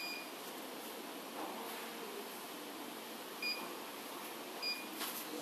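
Handheld three-phase energy meter field calibrator giving short, high electronic beeps as it is switched on and its keys are pressed: one right at the start, then two more about three and a half and four and a half seconds in.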